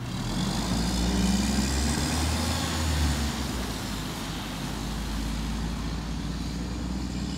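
Mack MR garbage truck's diesel engine pulling away under power with a deep growl. It builds over the first couple of seconds, then slowly fades as the truck drives off.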